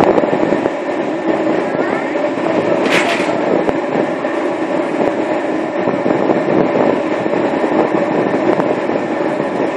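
Steady mechanical rumble and hum of a large ship's engines and ventilation heard on deck, with a brief hiss about three seconds in.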